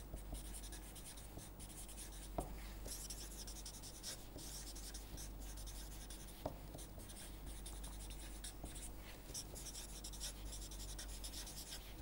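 Felt-tip permanent marker scratching across paper as words are written, in short runs of strokes. There are a couple of sharp taps, about two and six seconds in.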